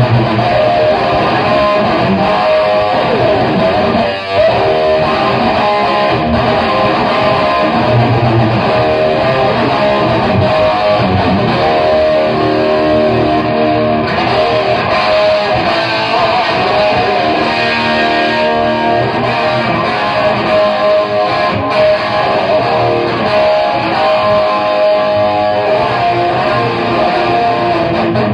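Les Paul Classic electric guitar played through a Laney AOR 50 Series 2 amp, overdriven by a Digitech Bad Monkey pedal with MXR Black Label chorus. It plays sustained chords and riffs, with a brief gap about four seconds in.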